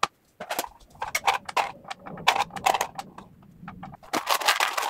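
Irregular light clicks and knocks of objects being handled and set down on a plastic scanning turntable, with a denser rustling, scraping stretch near the end.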